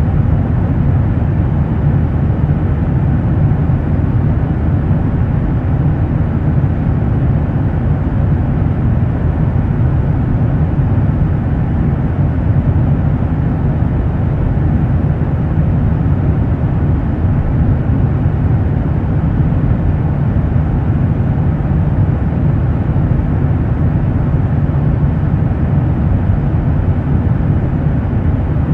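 Steady, loud low rumble of road traffic, unchanging throughout.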